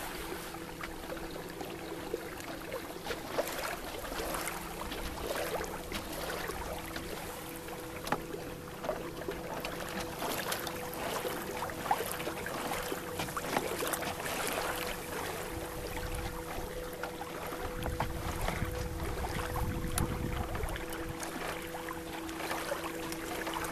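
Lake water lapping and splashing against a moving canoe's hull, with many small irregular splashes and a faint steady hum underneath. A low rumble comes in briefly a little past the middle, toward the end.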